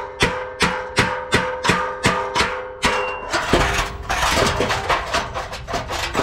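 A hammer striking a truck's exhaust pipe at a joint, about three blows a second, the pipe ringing between blows. A little over three seconds in, the pipe section knocks free and falls with a clattering rush of metal.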